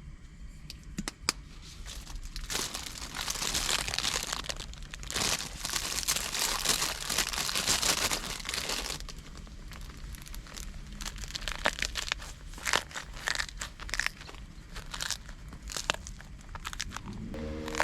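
Crinkling and rustling of something being handled, loudest from a few seconds in to about halfway, then giving way to scattered clicks and taps. A pitched tone comes in just before the end.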